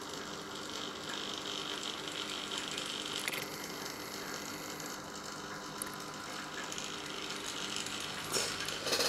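Steady low hum and hiss of running aquarium equipment, with a couple of faint clicks.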